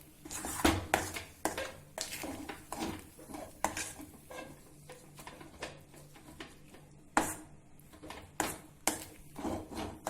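A spoon stirring thick bread halwa paste in a kadai, scraping and knocking against the pan at an irregular pace.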